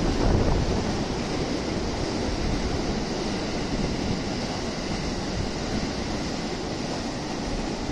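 Steady rushing noise of wind on the microphone, mixed with the low rumble of trains and city traffic. It is a little louder for the first half second.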